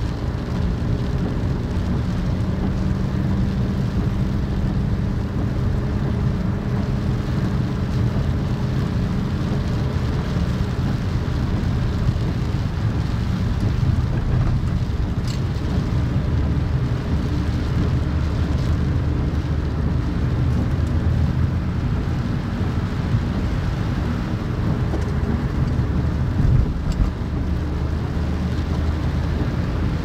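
Car driving on a wet road, heard from inside the cabin by a dashcam: a steady low rumble of engine and tyres, with the engine tone shifting lower after the first few seconds.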